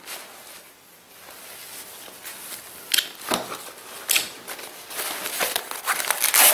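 Cordura nylon plate-carrier vest being handled and opened: fabric rustling and rubbing, with a few short sharp scrapes about three and four seconds in and denser rasping near the end.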